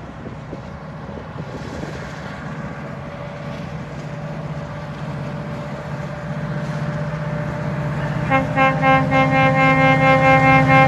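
GO Transit commuter train's diesel locomotive approaching, its engine hum growing steadily louder. About eight seconds in, the locomotive's horn starts sounding a held chord that wavers in level, the loudest sound.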